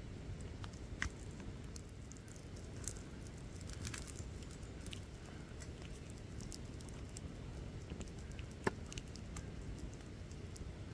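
Wood fire burning, with a steady low rumble and scattered sharp crackles and pops of burning wood, one louder pop near the end.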